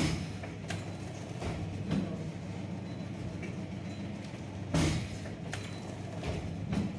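Automatic oil pouch packing machine running with a steady hum, its sealing jaws and drive clacking at uneven intervals, the loudest clack about five seconds in.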